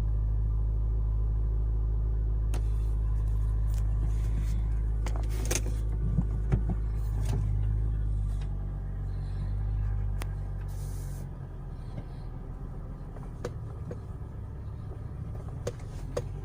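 Mitsubishi Lancer X with a steady low drone, marked by scattered short sharp knocks, several around the middle and more near the end; the drone eases down about eleven seconds in. The knocks are taken for the front-suspension knock being chased, with the steering rack or a CV joint suspected.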